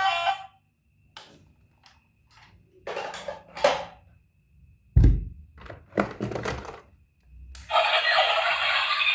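Plastic toy vehicles being handled, giving a run of irregular knocks and clatters, with the loudest thump about five seconds in. A toy's electronic sound cuts off just after the start, and a loud electronic toy sound begins near the end.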